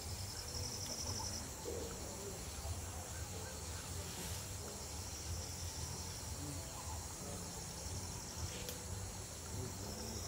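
Steady chorus of insects with a fast pulsed cricket trill about a second in and again near the end, over a low background rumble, with two faint clicks midway.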